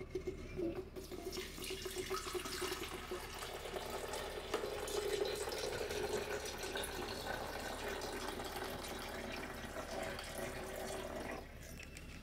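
Kitchen tap running into a sink, with a few light knocks, shut off near the end.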